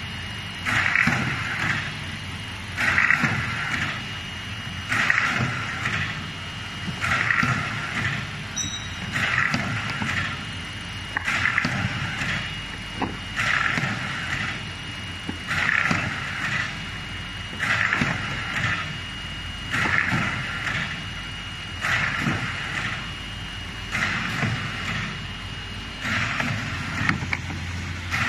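Paper tube (paper core) making machine running, with a burst of noise repeating about every two seconds over a steady low hum and a faint high tone.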